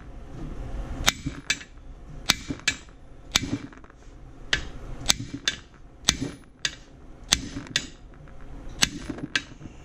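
A large hammer striking a cam bearing installer tool, driving a camshaft bearing into the cam bore of an aluminum LS engine block. Sharp metal-on-metal strikes, about one a second and often in quick pairs.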